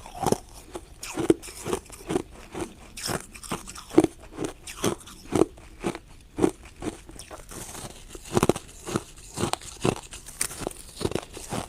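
Ice being bitten and chewed: a steady run of sharp, crisp crunches, about two a second.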